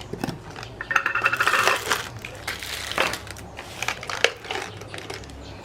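Buttons rattling and clicking as a hand rummages through a container of them, with a busier burst of rattling about a second in.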